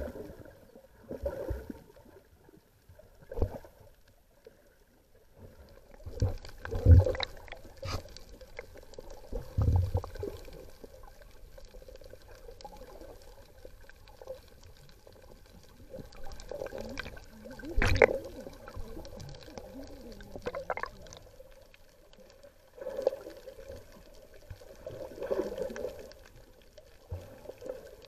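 Muffled underwater sound picked up through an action camera's housing: water gurgling and sloshing, with irregular dull bumps and a sharp knock about eighteen seconds in.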